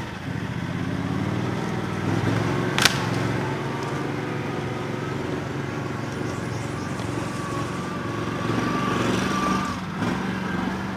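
Motor vehicle engine running steadily, with one sharp click about three seconds in.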